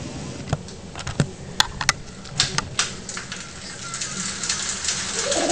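Scattered, irregular light clicks and knocks from a child's bicycle being handled and steadied, two of them sharper a little under two seconds in, with a hiss building near the end.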